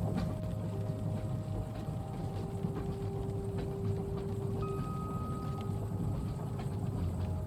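Passenger train carriage ambience: a steady low rumble of the train running, with light clacks and ticks throughout and faint steady tones, a higher one sounding briefly about halfway through. Gentle rain on the window is mixed in.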